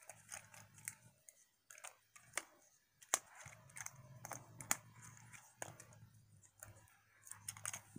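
Faint plastic clicks of a Transformers Siege Sideswipe action figure's joints and parts being moved by hand as it is transformed, with a few sharper clicks about three, four and a half and five and a half seconds in.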